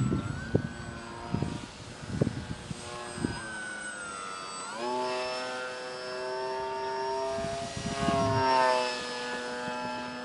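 Brushless electric motor and 10x5 propeller of a small foam-board RC plane in flight, its whine wavering in pitch, then rising sharply about halfway through as the throttle goes up and holding there. Low irregular buffeting on the microphone comes at the start and again near the end.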